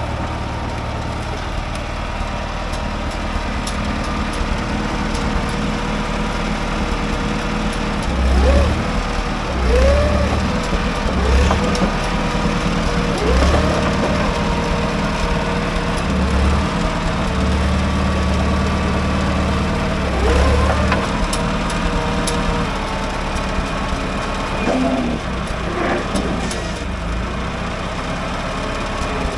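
International 340 crawler's engine running, its speed surging up several times in the middle. Short squeals that rise and fall in pitch come over it at intervals.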